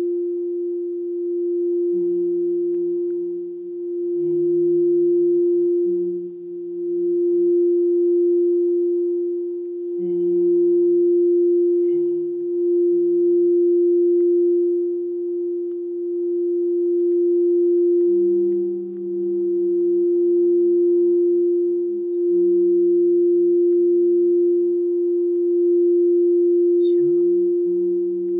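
Frosted quartz crystal singing bowl sung by running a mallet around its rim: one steady, unbroken tone that swells and eases every couple of seconds, the bowl tuned for the heart. A lower tone sounds beneath it in short held notes that step between pitches.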